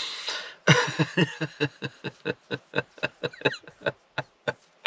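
A man laughing helplessly: a breathy exhale, then a long run of short, rapid "ha" pulses, about five a second, trailing off near the end.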